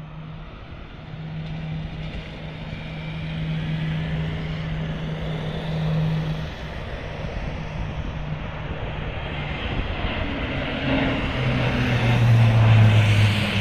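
Lockheed C-130 Hercules flying past, its four turboprop engines running with a steady hum that grows louder and then drops in pitch as it passes, loudest near the end.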